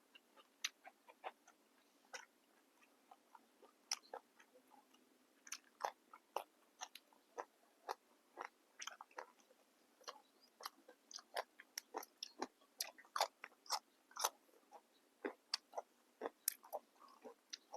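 A person chewing and biting crisp raw vegetables with a beef salad: many sharp, irregular crunching clicks, thinning out for a few seconds about two seconds in, then coming thick and fast again.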